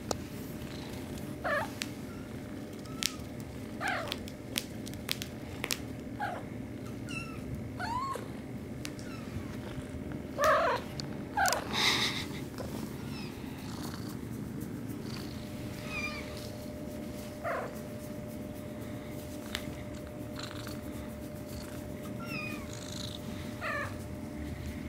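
Domestic cat purring steadily, with about ten short, sliding meows scattered through, the loudest a little before the middle.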